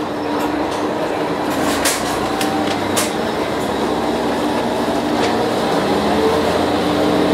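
Diesel railcar pulling away from a station, heard from inside the passenger cabin. The engine runs steadily under load, and a whine rises in pitch near the end as the train gathers speed, with a few sharp clicks along the way.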